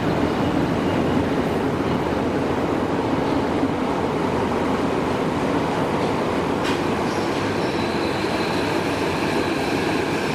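Hibiya Line subway train running at an underground station platform, with a steady noise of wheels and running gear. There is a single sharp click about two-thirds of the way through, and a thin, high steady whine joins after it.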